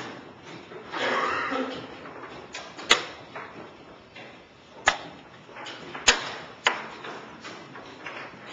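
Sharp clicks of a blitz chess game: pieces set down on the board and the chess clock's buttons pressed. Four separate clicks in the second half, the loudest about six seconds in.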